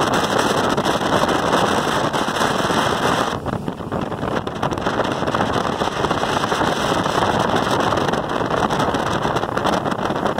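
Loud, steady rush of a motorboat under way towing a wakeboarder: wind buffeting the microphone in crackly gusts over the engine and the churning wake, easing briefly about three and a half seconds in.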